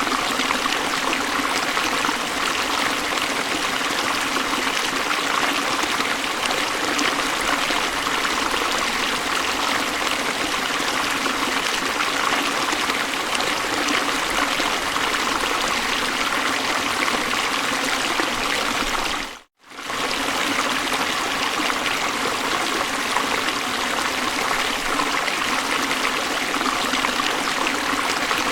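Flowing river water, a steady rushing. It dips away for a moment about two-thirds of the way through and comes straight back.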